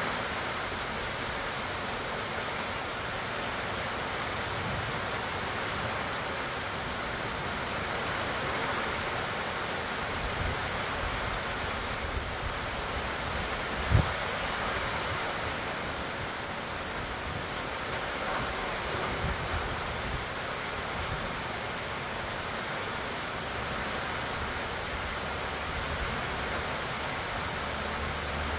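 Steady rain falling on the trees and grass of a pecan orchard, an even hiss, with one short low thump about halfway through.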